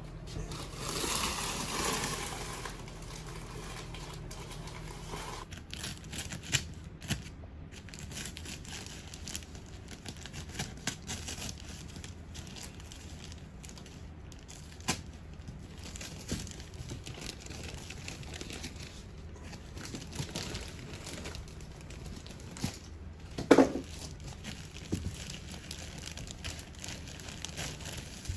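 Paper-faced fiberglass insulation crinkling, rustling and tearing as it is pulled apart and pressed into the wall, with scattered light knocks and clicks. The loudest rustling comes about a second in, and one short, loud sound stands out near the end.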